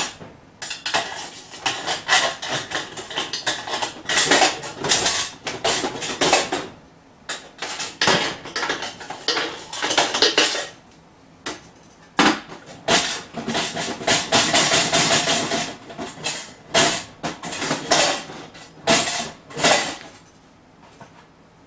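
A metal rod scraping, rattling and knocking inside the stainless steel kettle of a small popcorn machine, working loose corn that is stuck in it. The clatter comes in irregular spells with short pauses.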